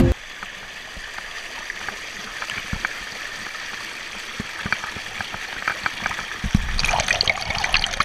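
Shallow stream water running and trickling over rocks right at the camera, with many small splashes that get busier near the end.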